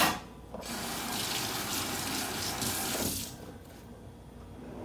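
Water running from a kitchen faucet, turned on about half a second in and shut off about three seconds in, with a short sharp click just before it starts.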